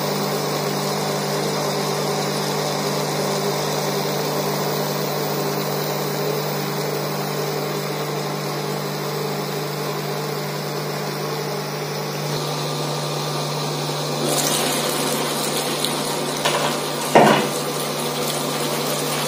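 Drumsticks simmering in water in a covered nonstick pan on an induction cooktop, over the cooktop's steady hum. About fourteen seconds in, the glass lid comes off and a louder sizzle sets in. A short knock follows a few seconds later.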